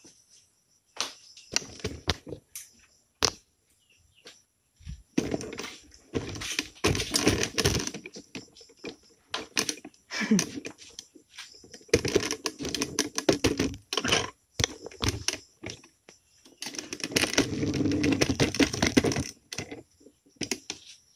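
Clicking and rattling from the parts and box of a new pole cutter being handled. A few sharp clicks come first, then three bursts of clatter of a few seconds each.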